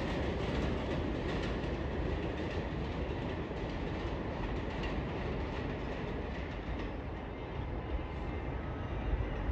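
New York City subway train on the elevated BMT Jamaica Line running away from the station, its wheels clattering on the rails as the sound slowly fades.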